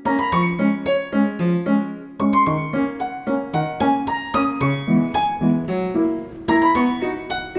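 Background piano music: a light melody of evenly paced single notes, with a brief pause about two seconds in.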